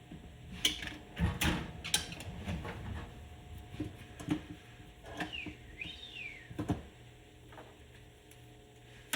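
Metal tools clinking, knocking and scraping against motorcycle engine parts in irregular sharp strokes, with a brief faint squeak about five to six seconds in.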